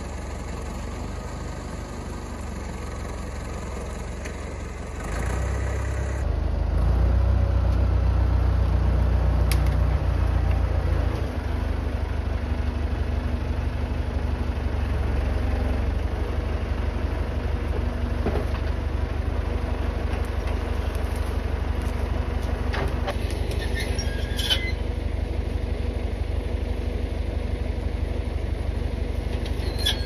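Massey Ferguson tractor engine running, louder and working harder for several seconds after the first few, then running steadily.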